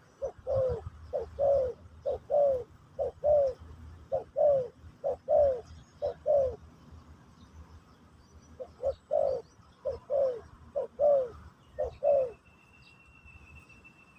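Spotted dove cooing: paired low notes, a short coo followed by a longer falling one, about one pair a second, in two runs with a pause of about two seconds between them.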